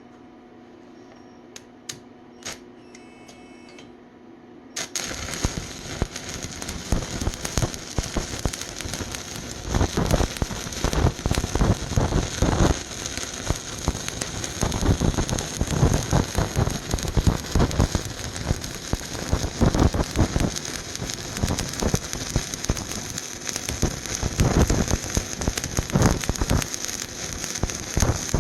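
Stick-welding arc on rusted steel pipe, 3/32-inch rod at 75 amps, struck suddenly about five seconds in, then a continuous crackling sizzle full of sharp pops. Before the arc only a few faint clicks.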